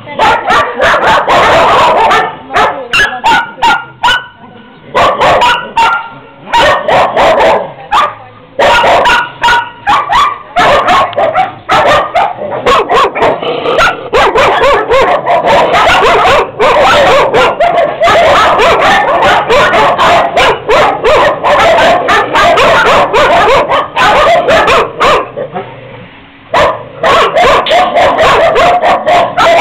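Many kennelled dogs barking loudly at once, a dense run of overlapping barks and yips, easing briefly a few seconds before the end before starting up again.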